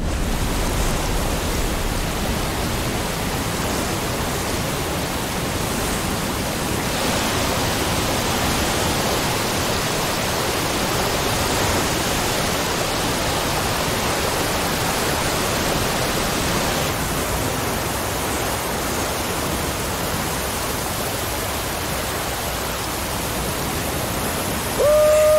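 Waterfall pouring down a rock face: a steady, loud rush of falling water that cuts in suddenly. Just before the end a steady pitched tone comes in over it.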